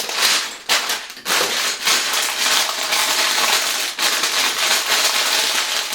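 Plastic bags of LEGO pieces being handled, with steady crinkling and rustling of the plastic and a couple of brief dips in the first second or so.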